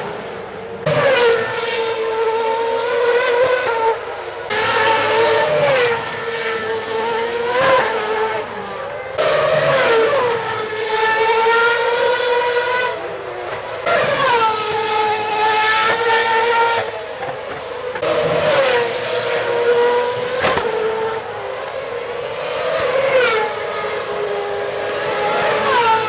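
2010 Formula One cars' 2.4-litre V8 engines passing one after another through a slow corner, a new car every few seconds. Each drops in pitch as it shifts down under braking, then climbs in pitch as it accelerates out.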